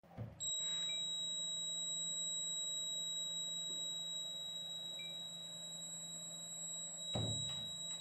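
The door alarm's buzzer sounding one steady, high-pitched tone after the magnetic reed sensor detects the door opening. The tone keeps going after the door is shut again with a thud about seven seconds in, because the alarm stays on until it is switched off.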